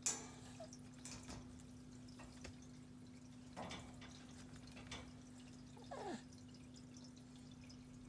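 Light taps and knocks of a kitten batting and pouncing on a toy mouse, the sharpest one right at the start, then scattered smaller taps. Near the end there is a short squeak that falls in pitch. A steady low hum runs underneath.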